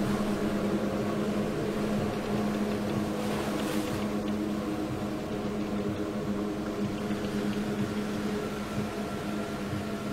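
Dark ambient drone: a steady low hum with a strong held tone and fainter tones above it, under a haze of hiss, with a brief swell of hiss about three seconds in.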